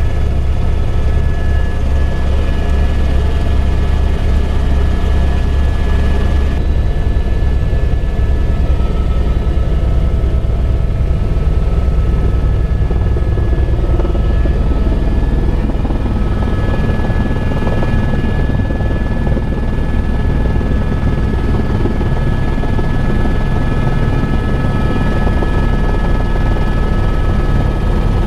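Helicopter in flight: a steady low rotor and engine rumble with a thin, constant high turbine whine.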